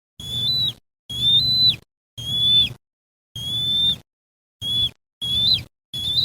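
Eagle calling: a series of about seven high, whistled calls, each held level for half a second or so and ending in a quick flick of pitch, with short gaps between.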